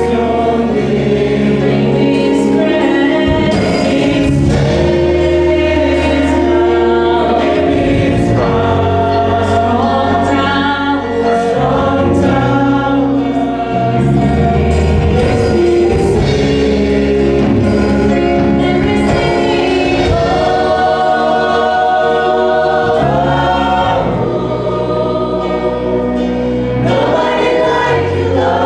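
Choir singing a gospel worship song with instrumental backing, held low bass notes changing every second or two beneath the voices.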